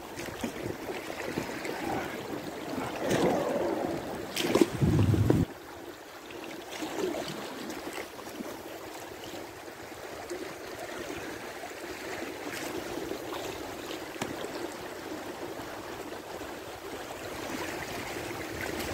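River water rushing over shallow riffles and lapping along the hull of an inflatable kayak drifting downstream. About four seconds in there is a brief, loud rumble.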